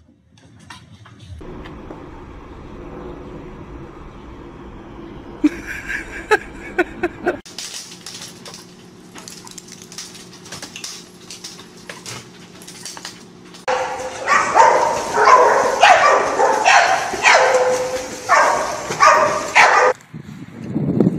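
A dog vocalizing, with a loud run of pitched, repeated cries in the last third. The sound changes abruptly several times between short clips.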